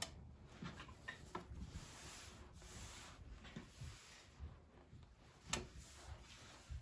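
Faint rustling of clothing fabric being handled and shifted on a wooden table, with a few light taps and clicks. The sharpest click comes about five and a half seconds in.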